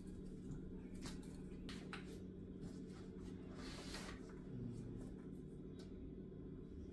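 Faint rustling of fabric and a few light taps as a curtain-covered cabinet door is handled, over a steady low hum.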